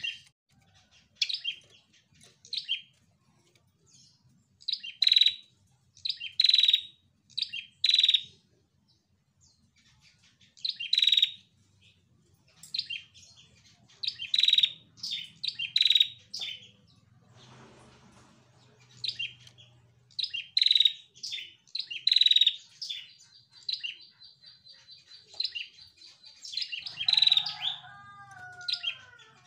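Female prenjak calling in short bursts of rapid, sharp, high chirps, a burst every second or two with brief quiet gaps between. Near the end a held high note gives way to a few lower, falling notes.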